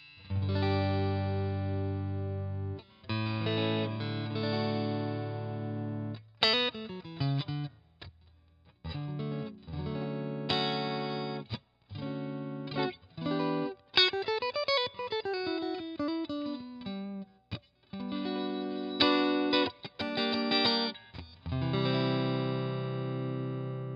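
Fesley ST electric guitar played through a clean amp with a little reverb: strummed chords left to ring, broken by short pauses, with a quick run of single notes climbing and then falling back down around the middle.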